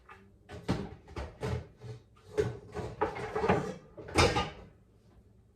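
Pots and pans knocking and clattering in a kitchen cabinet while someone rummages for a pan, with cupboard doors opening and closing. It is a quick string of clanks, and the loudest comes about four seconds in.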